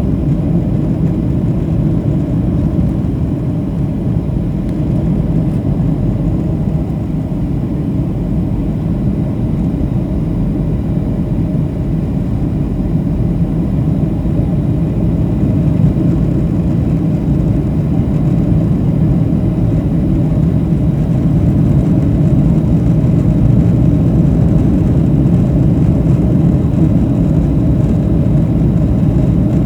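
Steady low rumble inside the cabin of a Boeing 737-700 in flight: engine and airflow noise heard from a window seat, getting slightly louder about two-thirds of the way through.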